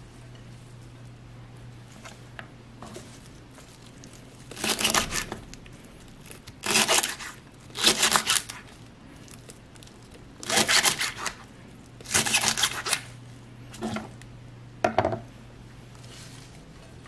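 Kitchen knife chopping leafy greens on a wooden cutting board, in six or seven quick runs of rapid strokes from about four seconds in until near the end. A steady low hum runs underneath.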